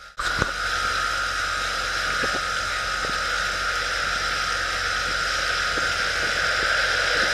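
Pontoon boat's outboard motor running steadily under way, with an even rush of wind and water and a constant high whine.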